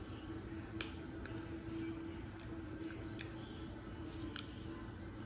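Close-up eating mouth sounds: chewing and finger-licking, with a few sharp wet smacks, the loudest about a second in, over a steady hum.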